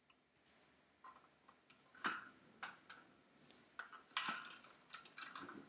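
Faint clatter and clinks of someone rummaging through parts bins: a handful of separate knocks, the loudest about two seconds in and a busier cluster from about four seconds on.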